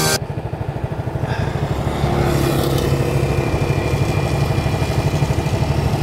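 Small scooter engine running while riding, with a fast, even throb.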